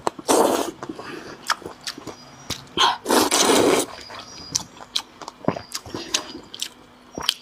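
A person slurping noodles twice, once just after the start and once about three seconds in, with chewing, lip smacks and small clicks between and after.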